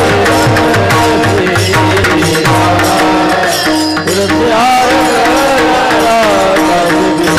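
Varkari devotional bhajan (a panchapadi): a voice sings a bending melodic line over steady held drone tones and hand-drum strokes. The drum strokes fall away about halfway through while the singing carries on.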